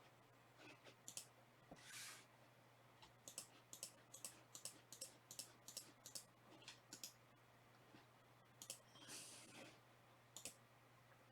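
Faint, irregular clicking in quick runs, with two short soft rustles, one about two seconds in and one near the end.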